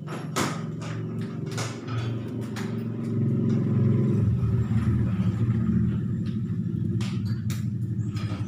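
A steady low engine-like rumble that grows louder about three seconds in, with scattered sharp taps and clicks from hand work on the sign.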